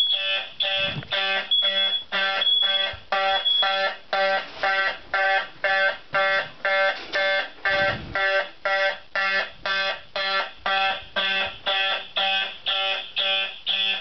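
Red wall-mounted fire alarm horn sounding in an even pulse, about two blasts a second, set off automatically by cooking smoke. A shriller high beep sounds over it a few times in the first few seconds.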